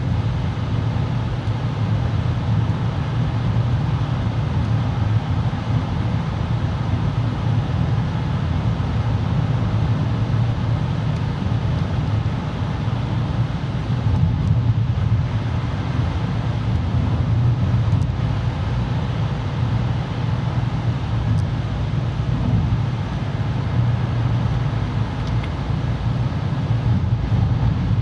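Car driving at motorway speed through a road tunnel, heard from inside the cabin: a steady low rumble of engine and tyre noise with no change throughout.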